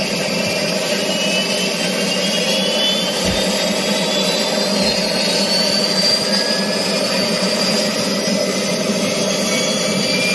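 Helicopter's turbine engine and rotor running loudly and steadily, with a high whine slowly rising in pitch, as the engine spools up toward takeoff.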